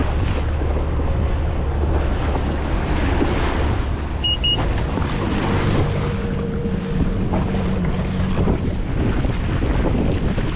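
Jet ski engine running slowly with a steady low hum, under wind buffeting the microphone and choppy sea water. Two short high beeps about four seconds in.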